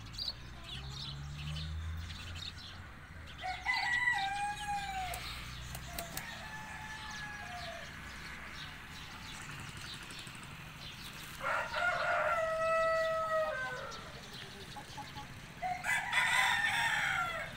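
Several rooster crows, each a long drawn-out call of about two seconds. The loudest comes about twelve seconds in, and another starts near the end.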